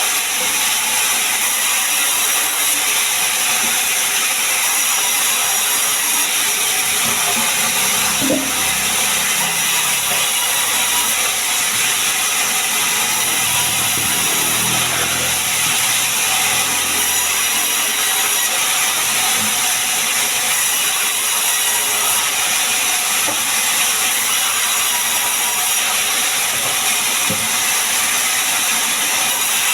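Sawmill saw running and cutting sengon wood, a loud, steady, high-pitched hiss, with some lower rumbling through the middle.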